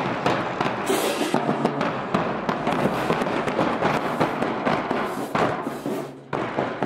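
Marching band drumline playing a cadence: bass drums and snare drums beating in a quick, dense run of strokes, with a brief drop about six seconds in.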